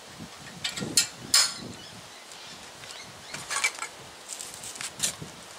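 Scattered metallic clicks and clinks of a hand tool and loosened handlebar and stem parts as the handlebars are worked off an old steel bicycle. The sharpest clink comes about a second and a half in, with smaller groups of clicks later.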